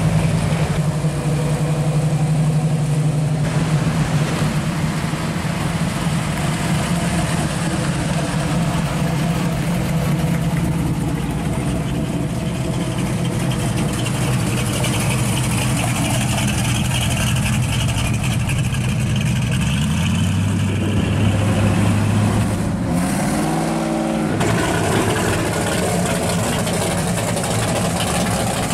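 Classic muscle cars and hot rods driving past at low speed, their V8 exhausts running steadily. About three-quarters of the way through, one engine is revved briefly, its pitch rising and falling.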